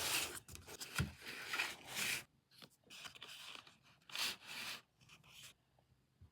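Packaging rustling and tearing as a squishy toy is unboxed, in several short bursts, with a soft thump about a second in.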